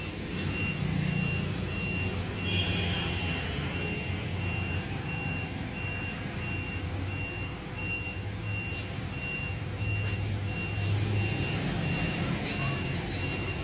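A high electronic beep repeating at an even pace over a steady low rumble.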